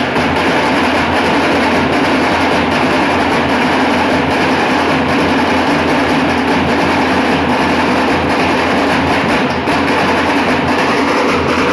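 Dhol-tasha troupe playing together: many large dhol barrel drums and a tasha drum beaten in a loud, dense, unbroken clatter of strokes.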